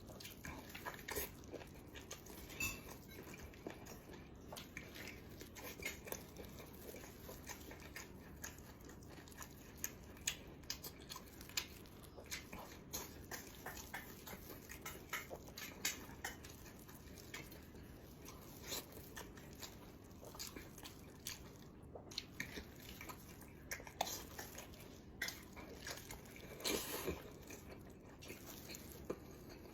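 A person chewing and biting food close to the microphone, with many short, irregular smacking clicks of mouth sounds.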